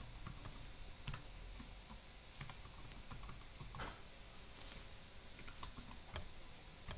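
Faint, irregular keystrokes on a laptop keyboard, spaced about a second apart.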